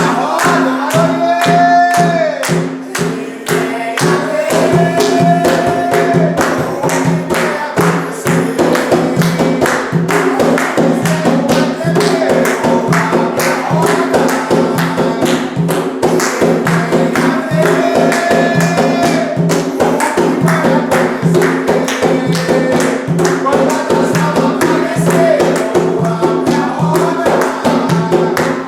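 A group singing an Umbanda ponto (ritual chant) together over a fast, steady beat of hand drums and tambourine-like percussion.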